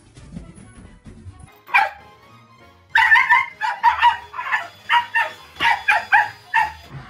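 A dog barking at a vacuum cleaner: one bark about two seconds in, then a quick run of about ten barks.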